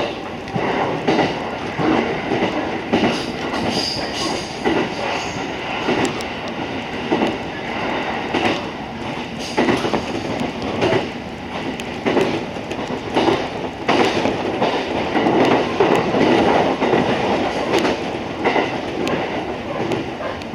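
Musashino Line electric train running, heard from inside the car: a steady rumble with wheels clacking over rail joints every second or so, and a faint high wheel squeal about four seconds in.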